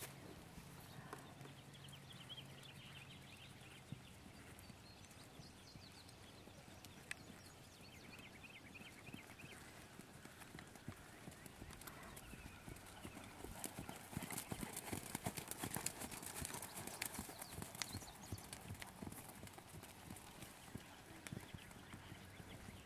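Hoofbeats of a ridden horse moving over arena sand, a faint run of soft thuds. They get louder and busier a little past halfway, as the horse passes close by, then fade again.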